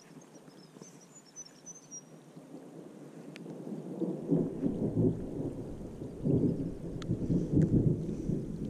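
Thunder rumbling, swelling from faint to loud about halfway through, over steady rain falling on pond water.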